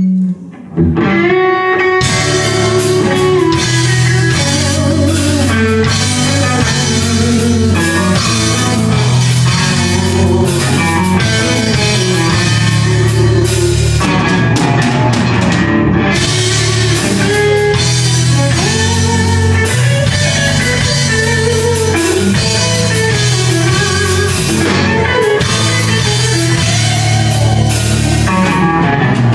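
Live rock band playing an instrumental metal piece: electric guitars, bass guitar, keyboards and drum kit. After a held note and a short break, the full band comes in about two seconds in and plays on at a steady loud level.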